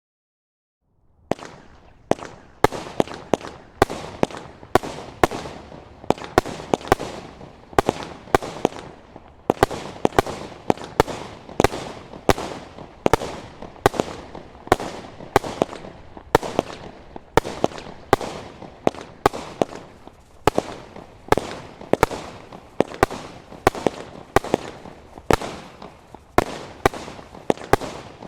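Standard Fireworks 'Witchcraft' 100-shot barrage firing: a brief silence, then from about a second in a continuous run of sharp shots and bangs in quick succession, roughly two a second.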